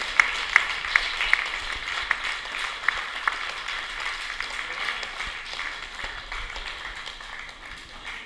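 A small crowd applauding, with a few loud sharp claps from someone close in the first seconds; the applause gradually dies away.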